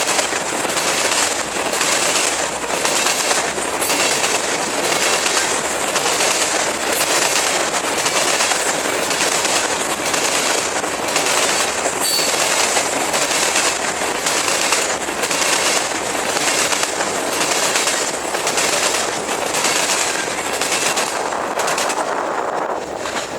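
Freight cars of a CSX train rolling past at speed, their wheels clacking over the rail joints in a steady rhythm over a constant rumble. The noise drops away near the end.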